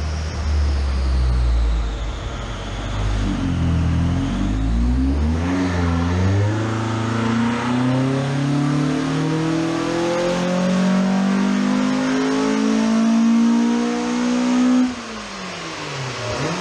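Ford Focus ST170's four-cylinder engine, on individual throttle bodies and a custom 2.5-inch exhaust, making a full-throttle pull on a rolling-road dyno. After a few seconds of low rumble the revs climb steadily for about ten seconds, then it lifts off sharply near the end and the revs fall away.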